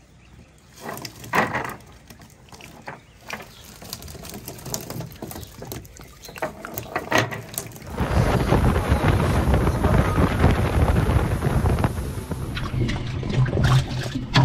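Rustles and short knocks as a cast net full of pinfish is lifted and handled on a dock. About eight seconds in, a loud steady rush of wind buffeting the microphone takes over.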